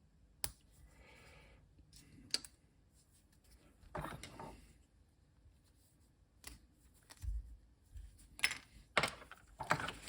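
Scattered sharp clicks and taps of small parts and tools being handled on a workbench, with a brief rustle about four seconds in, a low thump about seven seconds in, and a quick run of clicks near the end.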